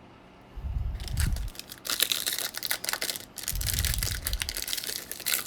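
The wrapper of a 2021 Bowman baseball card pack being torn open and crinkled by hand, a run of sharp crackling and rustling starting about half a second in.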